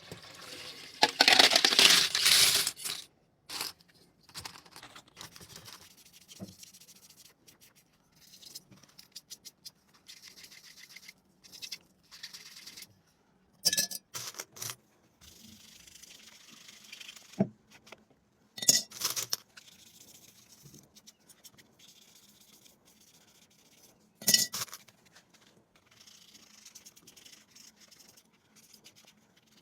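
Small hard items being handled, with scattered clinks, clicks and scrapes. A louder rushing, rattling burst lasts a second or two near the start.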